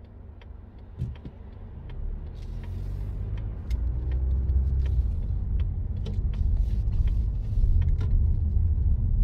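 Car heard from inside the cabin: a steady ticking, a few times a second, like a turn-signal relay, then the engine and tyre rumble building as the car pulls away and accelerates, the engine note rising between about two and four seconds in.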